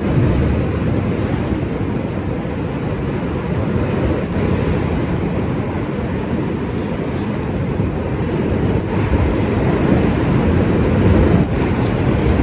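Steady wind noise on the microphone with the wash of ocean surf behind it.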